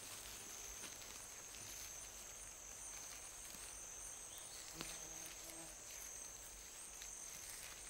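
Faint rainforest insect chorus: a steady high-pitched trilling, with one soft click a little under five seconds in.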